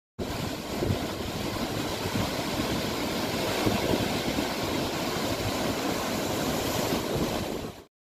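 Steady, dense rush of a large waterfall heard close to its foot, starting abruptly and cutting off just before the end.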